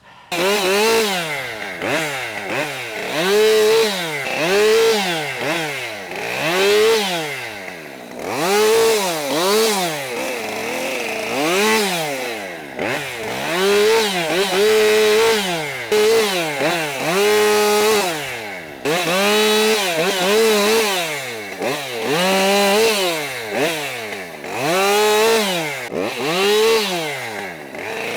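Gas chainsaw revved up to full throttle and dropped back again about once a second, over and over, as in a run of short cuts.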